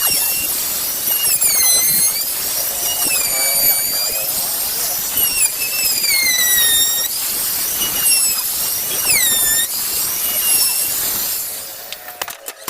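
Electric power tool working wood: a loud, high-pitched motor whine over a hiss, its pitch dipping and recovering again and again. The whine dies away near the end, leaving a few clicks.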